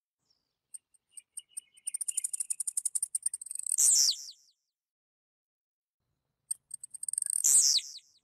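Blue-black grassquit (tiziu) singing, twice: each time a few high ticks speed up into a fast, high trill that ends in a loud falling note. The first phrase starts about a second in, the second near the end.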